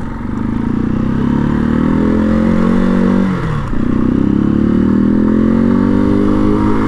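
Janus Phoenix 250's single-cylinder engine heard from the rider's seat, accelerating away from a stop. The revs climb, drop sharply at an upshift about three seconds in, then climb again through the next gear and drop at another shift at the end.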